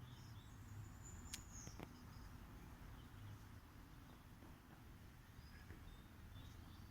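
Faint bird calls, a few short high chirps near the start and again near the end, over a quiet outdoor background with a couple of faint clicks a little over a second in.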